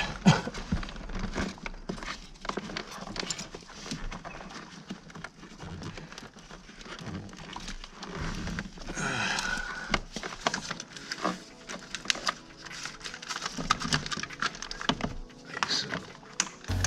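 Irregular clicks, knocks and rustling of hands and tools working in a car's engine bay, with wiring plugs and parts being handled.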